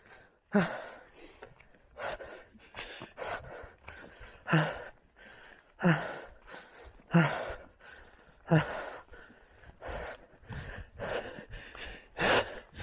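A man breathing hard and loud as he hurries on foot, with heavy, partly voiced breaths about every second and a half and his steps crunching on gravel and stones between them.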